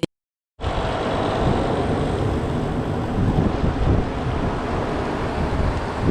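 Wind buffeting the microphone on a beach, with surf beneath it. It starts suddenly about half a second in after a moment of dead silence and then stays steady.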